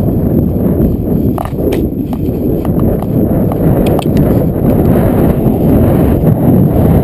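Hoofbeats of a horse cantering on grass, heard close up from the rider's helmet camera over a steady low rumble.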